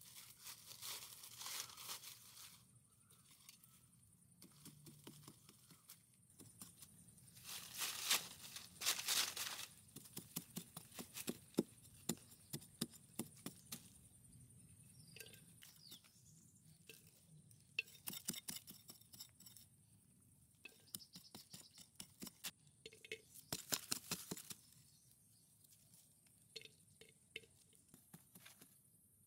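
Dry leaves and brush rustling in four short bursts, with many small crackles and snaps of twigs and leaf litter between them, as a person pushes through undergrowth and works a stick into the ground.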